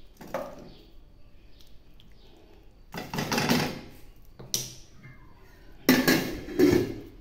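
Wooden spoon scraping and knocking against a stainless steel pot and a ceramic plate as stew is dished out. It comes in several short bouts with a sharp knock in the middle, loudest near the end.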